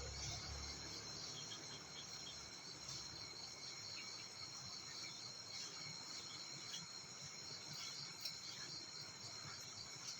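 Insect chorus: a steady, high-pitched, faint trilling.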